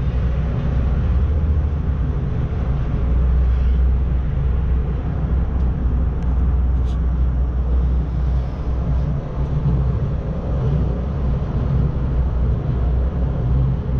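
Steady low rumble inside a gondola cable-car cabin as it travels up along its cable, with the cabin's running noise and vibration and a couple of faint clicks about halfway through.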